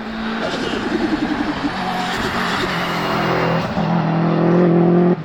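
Subaru Impreza WRX STi's turbocharged flat-four engine under hard acceleration: the note dips briefly at first, then climbs steadily and gets louder for a few seconds before cutting off suddenly near the end as the throttle is lifted.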